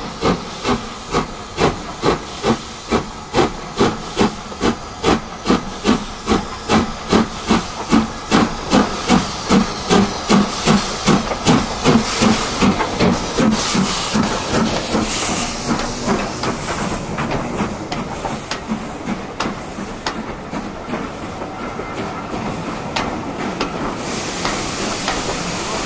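Steam locomotive chuffing: regular exhaust beats about two a second that quicken and, about halfway through, run together into a steady hiss of steam.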